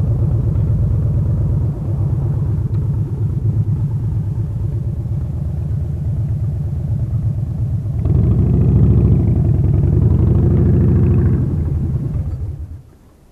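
A loud, low engine rumble that swells about eight seconds in and cuts off abruptly near the end.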